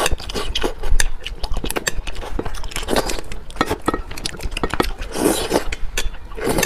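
A person eating fish in sauce close to the microphone: wet chewing and mouth smacking with many small clicks, and two longer slurping sounds about three and five seconds in.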